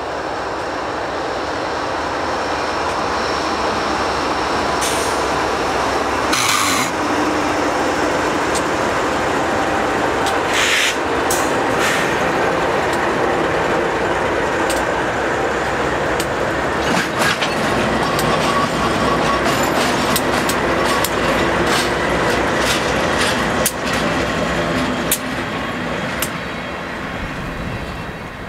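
Union Pacific freight train rolling slowly past at about 5 mph: a steady rumble of passing cars with scattered sharp clanks and wheel clicks, which grow more frequent in the second half.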